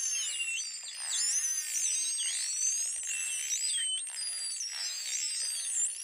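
False killer whales heard underwater: many overlapping high whistles sweeping up and down, with buzzing click trains beneath them.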